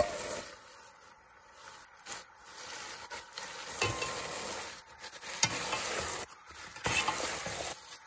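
Soaked basmati rice being stirred with a metal spatula into chicken frying in oil in a pot: a steady sizzle with scraping and short knocks of the spatula.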